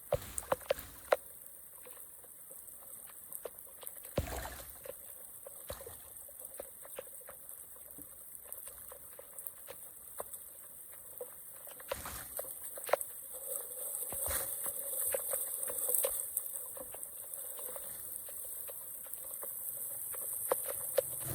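Water trickling, with scattered clicks and a few dull knocks.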